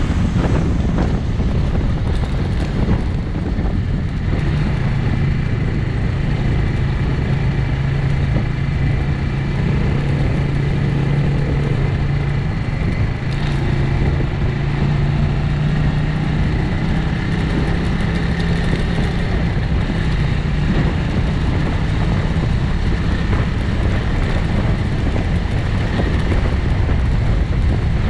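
Bristol 250 Classic motorcycle engine running at a steady cruise, mixed with wind and road noise at the bike-mounted microphone. A steady low engine hum stands out from about four seconds in until past the middle.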